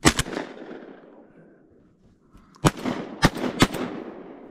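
Shotgun blasts: one right at the start from a Remington V3 Pro semi-automatic shotgun fired at crows overhead, then three more in quick succession between about two and a half and three and a half seconds in, each ringing out briefly.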